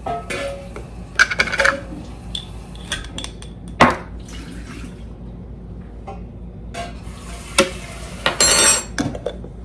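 Kitchen handling sounds: a metal measuring spoon clinking and tapping against containers as spices go into a food processor bowl. A sharp click comes about four seconds in, and a short ringing metallic rattle comes near the end.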